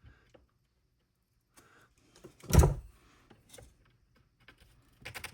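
A single loud thud about two and a half seconds in, between faint clicks and handling noise of hands working on a bench.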